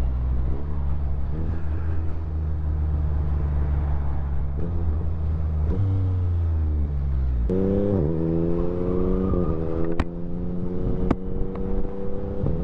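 Motorcycle engine running under way, heard from the rider's seat: the revs shift and sag over the first few seconds, jump up sharply about seven and a half seconds in, then climb steadily as it accelerates. A couple of sharp clicks come near the end.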